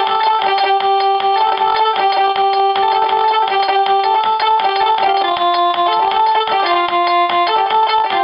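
Instrumental party music: a stepping melody doubled in two parallel lines over a fast, steady beat.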